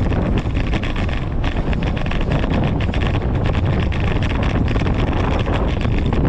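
Wind buffeting the microphone of a bike-mounted action camera, a steady loud rumble, as a fixed-gear bicycle rolls over brick pavers, with frequent small clicks and rattles from the ride.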